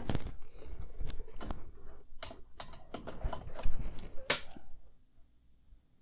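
Handling noise as soldering gear is set down and a bare keyboard circuit board is picked up and turned in the hands: irregular scraping and crackling with several sharp clicks, the loudest between about two and four and a half seconds in, stopping about five seconds in.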